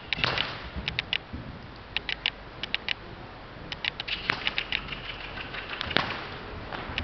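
Loose horse cantering on the sand footing, its hoofbeats in quick groups of three about once a second. There are two sharper knocks, about four and about six seconds in.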